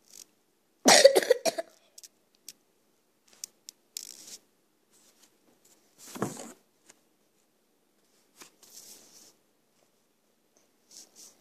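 A person coughing: a quick run of several coughs about a second in, and one more cough around six seconds.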